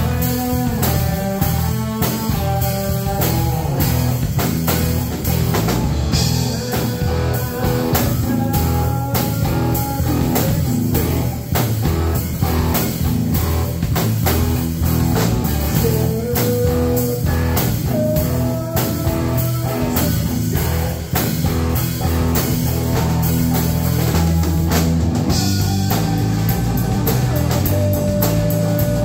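Live rock band playing: electric guitar, bass guitar and drum kit, with long held notes above the band, one sliding up in pitch about halfway through.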